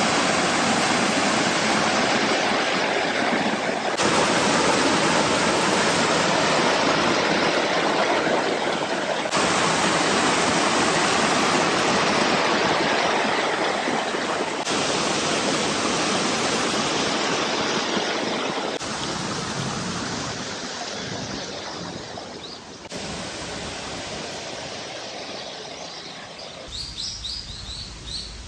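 Small rock waterfall: water cascading over boulders into a pool, a steady rushing noise. It grows fainter about two-thirds of the way through, and near the end it gives way to birds chirping.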